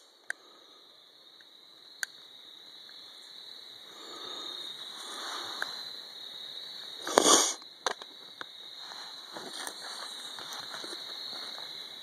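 Handling noise from pistols and the camera: two short sharp clicks near the start, then rustling and scraping, loudest a little after seven seconds, over a steady high-pitched hum.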